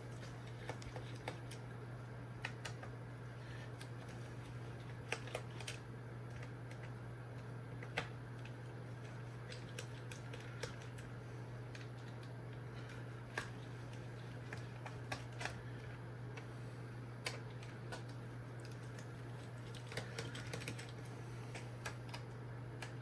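Scattered light clicks and ticks of a small screwdriver turning and lifting out the screws from the plastic back case of a portable gas monitor, over a steady low hum.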